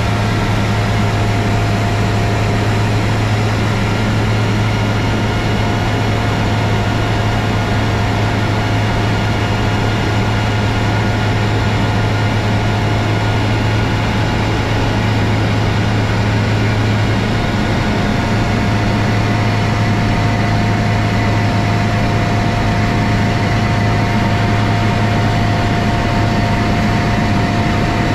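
Steady drone of a small single-engine propeller plane's engine and propeller at cruise, heard inside the cabin: a strong low hum with a steady higher whine over it.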